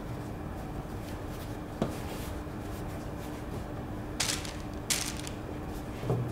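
Hands working soft scone dough on a floured stainless-steel bench and setting the pieces on a paper-lined baking tray: a knock, two short paper rustles and a soft low thump, over a steady low hum.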